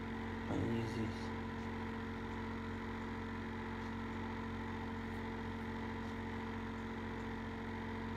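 A steady electrical hum made of several fixed tones. About half a second in, a brief vocal sound lasts about half a second.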